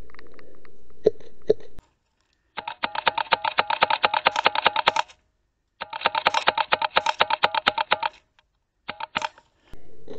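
Two sharp shots in the first two seconds, then two long bursts of rapid, even clicking, about ten a second, each lasting about two and a half seconds, and a few more clicks near the end: airsoft rifles firing.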